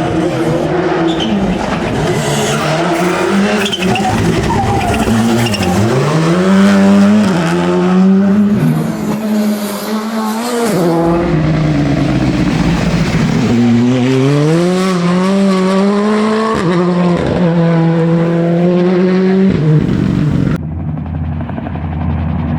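Rally car engine revving hard, its pitch climbing through the gears and dropping at each shift, with tyre squeal. Near the end the sound changes abruptly to a steadier, lower drone.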